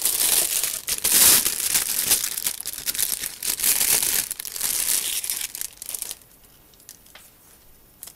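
Clear plastic bags crinkling as bagged plastic sprues are handled and one is pulled out, stopping about six seconds in; a few faint clicks follow.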